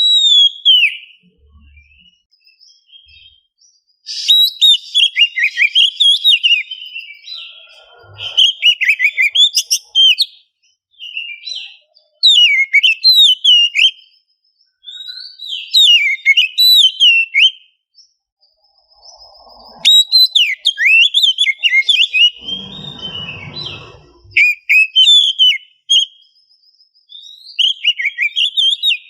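Oriental magpie-robin (kacer) singing: loud, rapid whistled phrases of sliding and trilling notes, in bursts of a few seconds with short pauses between them. A brief low noise cuts in about 23 seconds in.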